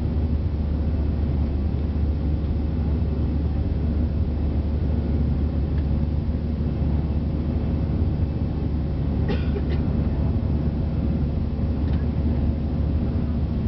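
Steady roar of a jet airliner's engines and airflow heard inside the cabin during the climb after takeoff, with a strong low rumble and a faint steady hum. Two faint clicks come about nine seconds in.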